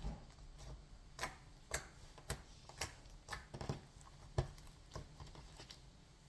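Slime being squeezed and stretched by hand, giving off a series of sharp, quiet clicking pops about twice a second, fewer near the end.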